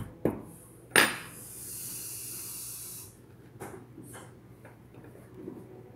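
A hand working moldable play sand on a wooden table: two sharp knocks, the second about a second in and the loudest, followed by a high hiss lasting about two seconds, then a few faint taps.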